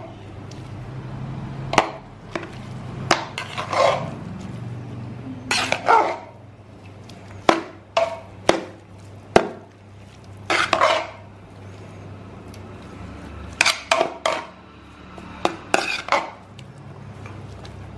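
Steel serving spoon scraping and clinking against the inside of a large metal pot as cooked biryani rice is turned and mixed. The strokes are irregular, sharp clinks and longer scrapes every second or two, over a steady low hum.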